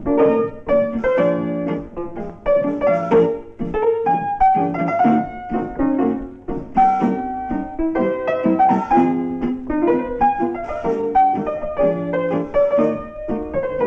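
Piano music: a busy run of quick notes and chords that changes pitch constantly, with no pause.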